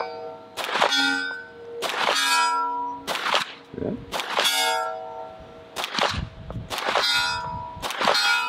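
Staccato XC 2011 pistol firing shots about once a second, each followed by steel targets ringing.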